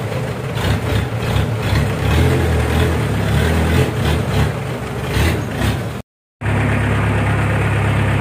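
Boat engine running steadily. It drops out to silence for a moment about six seconds in, then comes back as a steadier, even drone.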